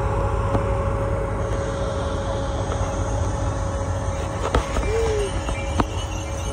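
Lit passenger cars of a train rolling past at close range: a steady rumble of wheels on rail with a faint steady whine over it, and two sharp clacks in the second half.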